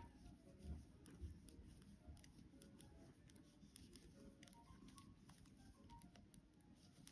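Faint, irregular clicking and ticking of 9-inch circular knitting needles and yarn as stitches are knitted in the round. There are a couple of soft low bumps from handling in the first second and a half.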